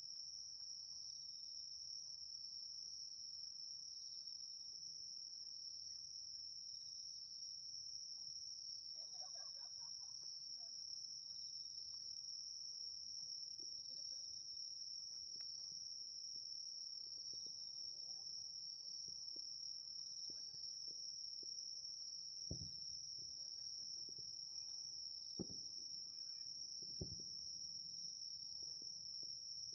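Insects singing in a steady, high, unbroken trill. A few distant fireworks booms come in the last several seconds.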